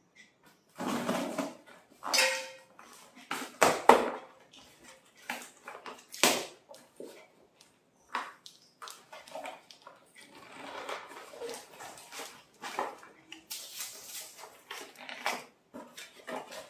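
A knife slitting the packing tape on a cardboard box, then the cardboard flaps pulled open and handled. A handful of sharp scrapes and rips come in the first six or so seconds, followed by softer cardboard rustling.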